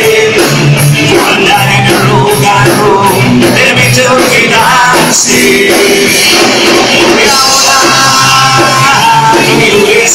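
Live rock band playing loud, led by two electric guitars.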